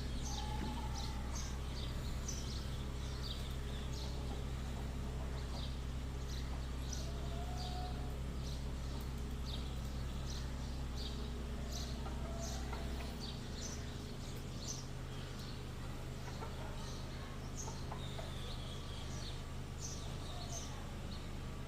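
Domestic hens and birds calling: many short high chirps throughout, with a few lower calls, over a steady low hum that partly drops away a little past halfway.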